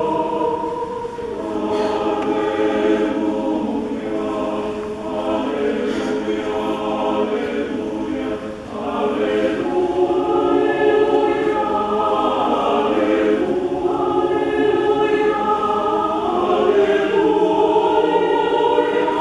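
Choir singing sustained chords that shift every second or two, with a brief dip in loudness about eight seconds in.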